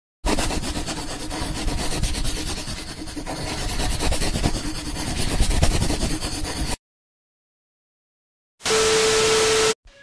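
Scratchy marker-on-paper scribbling sound effect, rising and falling in loudness for about six and a half seconds, stopping abruptly. After a short silence comes about a second of steady hiss with a steady hum.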